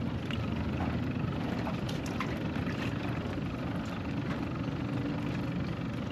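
Steady low rumble of wind and lapping water, with a few faint ticks.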